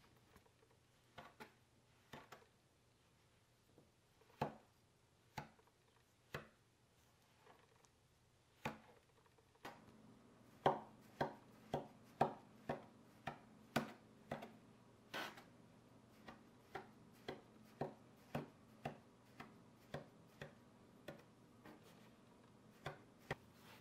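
A knife chopping cold butter into flour: scattered taps at first, then from about ten seconds in steady chopping strokes about two a second as the blade strikes the wooden board.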